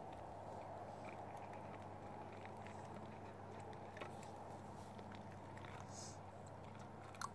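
Quiet steady background hum, with a few faint soft clicks.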